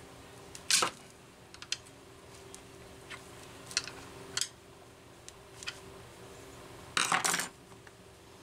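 Screwdriver and fingers clicking and tapping against a Homelite 330 chainsaw's plastic housing while working a pulled-out anti-vibration rubber mount back into place. There are scattered light clicks, a sharper click about a second in, and a louder half-second clatter near the end, over a faint steady hum.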